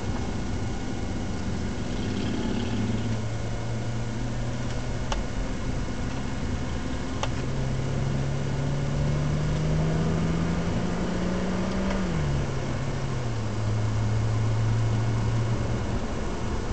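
BMW 135i's N54 twin-turbo inline-six heard from inside the cabin over steady road noise; its engine note climbs slowly for a few seconds, drops quickly about twelve seconds in and then holds at a lower pitch. Two faint clicks come earlier on.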